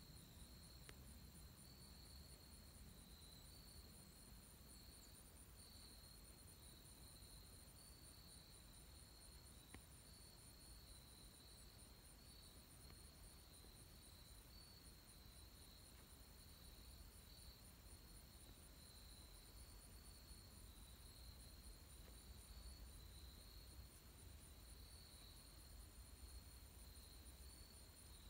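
Faint, steady insect chirring at two high pitches, the higher one pulsing rapidly, over a faint low rumble.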